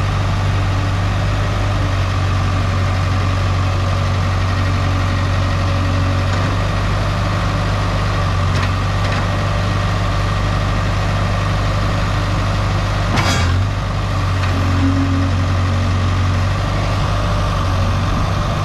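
Case 770EX-SS backhoe loader's diesel engine idling steadily, with a single sharp knock about thirteen seconds in.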